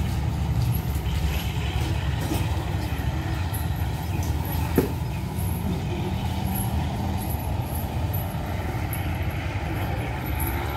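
Diesel train engine idling, a steady low rumble, with one sharp click about five seconds in.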